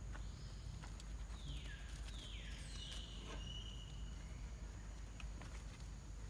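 Quiet outdoor forest ambience: a steady high whine, with three falling whistled calls in the first few seconds and a held high whistle about three seconds in.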